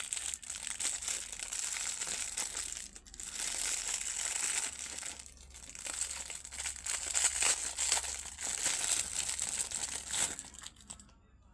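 Plastic packaging crinkling as it is handled and opened, in stretches with brief pauses, stopping shortly before the end.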